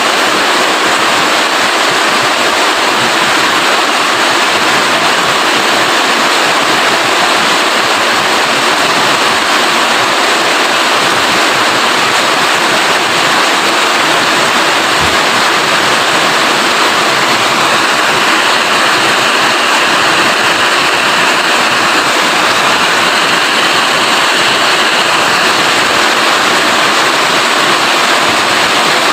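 Steady, heavy rain falling, a dense, even hiss of water with no letup.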